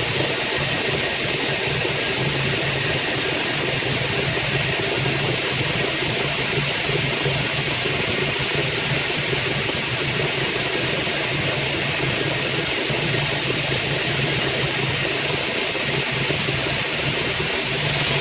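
Smart & Brown Model L lathe running steadily: a constant motor hum with a steady high-pitched whine that stops near the end.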